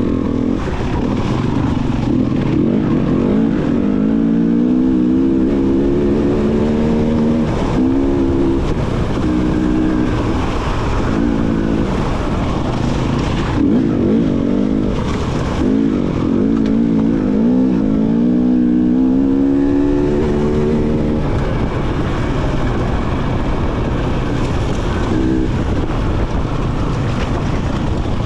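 A 2019 KTM EXC 300 TPI's single-cylinder two-stroke engine revving under way, its pitch rising and falling over and over as the throttle is worked, then running more evenly for the last several seconds.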